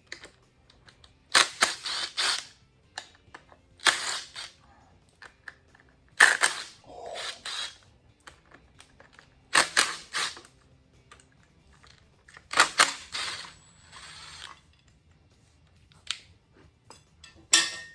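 Short blasts from a compressed-air blow gun, about every three seconds, six in all.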